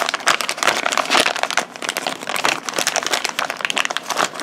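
A crinkly wrapper being torn open and peeled off a small squishy toy by hand: a busy, irregular run of crinkling and crackling.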